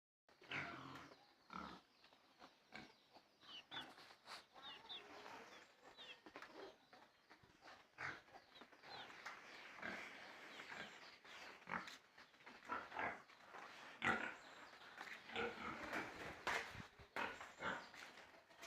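Pigs grunting and squealing, with many short irregular calls and a few brief high squeals.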